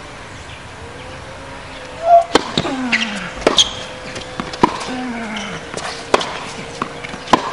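Tennis rally: the ball is struck back and forth, sharp pops off the racket strings with ball bounces between them, starting about two seconds in and coming roughly every second or so.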